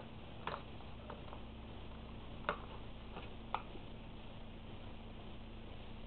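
Scattered drops of falling rain and snow tapping, about five short sharp ticks over a faint steady hiss, the loudest about halfway through.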